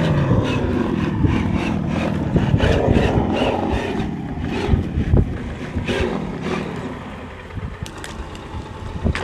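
Traxxas TRX-4 RC crawler's electric motor and geared drivetrain whining, rising and falling in pitch as it climbs over dry sticks, with twigs crackling under it. The motor sound fades about halfway through, leaving scattered cracks and knocks.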